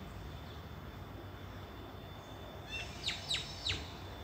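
A bird gives three quick, sharp calls, each sweeping down in pitch, about three seconds in, over a steady low background rumble.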